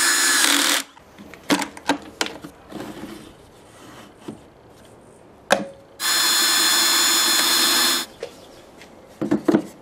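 Cordless drill with a pocket-hole bit boring into a 2x4 through a Kreg pocket-hole jig, running at a steady speed and stopping about a second in. Then wooden boards knock and clatter as they are handled, with one sharp knock near the middle, and the drill runs steadily again for about two seconds.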